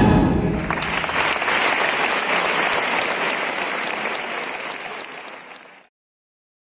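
Audience applauding as the last chord of a large brass band dies away. The applause starts about half a second in, fades gradually and cuts off abruptly near the end.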